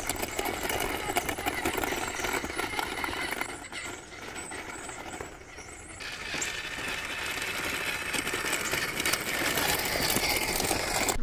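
Electric Axial RC trail truck driving over loose gravel while towing a trailer: its motor and gears whine and its tyres grind on the stones. It fades in the middle and grows louder again near the end as it comes close.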